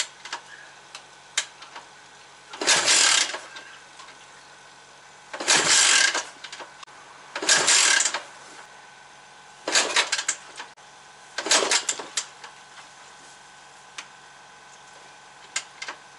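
Yamaha SR500's 499 cc air-cooled single-cylinder engine idling just after starting, with five short, loud bursts of revving a couple of seconds apart.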